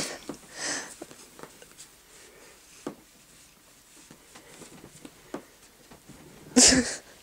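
Soft rustling and scratching as a hand rubs and pats a cat on a fabric bed blanket, with scattered light taps. Near the end comes one short, loud vocal sound.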